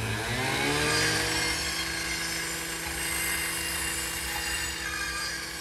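A power tool's motor spinning up with a rising whine, then running steadily over a harsh, hissing noise.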